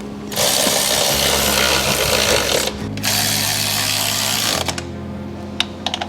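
A handheld power tool running in two bursts: a loud one of about two and a half seconds, then a shorter, quieter one, with a few clicks near the end. Background music with steady bass notes plays underneath.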